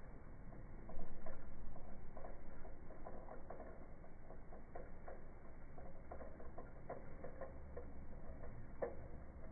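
Light, irregular clicking and tapping from a toddler's toy car being handled and played with, louder from about a second in.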